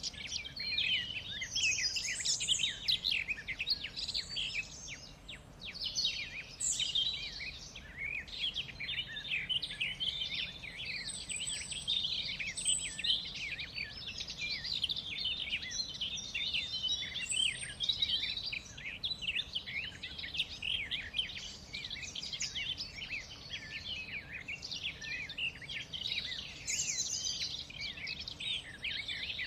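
Many birds chirping and singing together in a dense, continuous chorus of quick high notes, over a faint low background hum.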